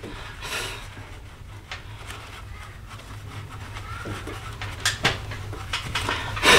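Hands handling a cold air intake tube and its coupler in an engine bay: rubbing and rustling with a couple of sharp clicks, one about five seconds in and one near the end, over a steady low hum.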